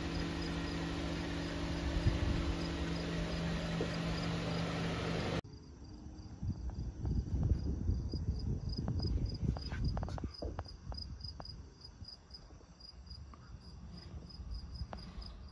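Crickets chirping, a short high chirp repeating about three times a second. For the first five seconds a steady low hum sits under them and then cuts off suddenly, leaving a faint low rumble.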